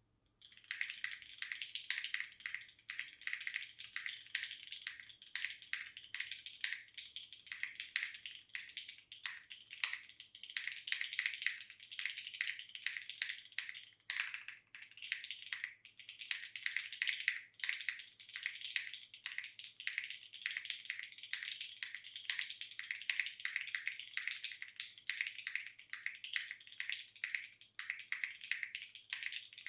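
Fast, continuous typing on a custom mechanical keyboard: a polycarbonate-cased SingaKBD Kohaku with a leaf-spring aluminium plate, Gateron X switches lubed with Krytox 205g0 and filmed, and GMK keycaps. The typing starts about half a second in.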